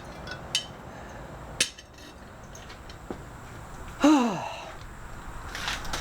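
A few sharp metal clinks and knocks as the wrought-iron anvil and its unwelded faceplate are handled, with a short voice sound falling in pitch about four seconds in.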